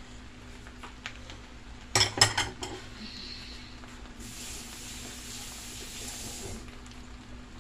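A quick cluster of clinks from dishes and utensils knocking together about two seconds in, the loudest sounds, followed by a soft hiss lasting about two seconds, over a steady low hum.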